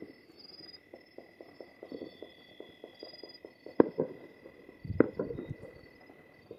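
Distant firecrackers crackling in a quick irregular string of small pops, with two louder echoing bangs about a second apart near the middle. Crickets chirp steadily throughout.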